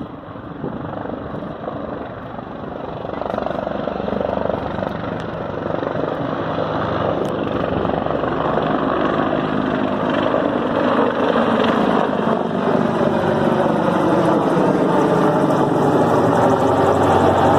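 Sikorsky CH-53E Super Stallion heavy-lift helicopter flying low toward the listener, its rotor and three turboshaft engines growing steadily louder as it closes in.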